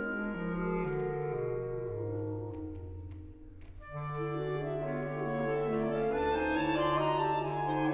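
Clarinet quartet of three B-flat clarinets and a bass clarinet playing chamber music. The bass clarinet steps down a descending line as the sound thins to a brief hush about three and a half seconds in. All four come back in at about four seconds over a held low bass note.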